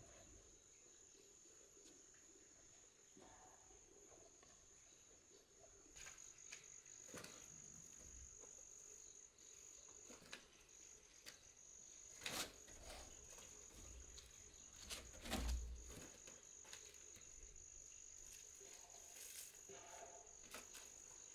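Faint steady high-pitched insect trill, with a few faint knocks and rustles scattered through it.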